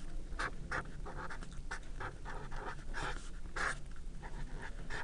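Pen scratching on paper as a line of an equation is written out: a string of short, irregular strokes.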